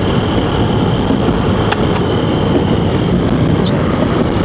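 Steady noise of a car driving through heavy snow, heard inside the cabin: engine, tyres on the snowy road and wind, with two faint ticks about two seconds apart.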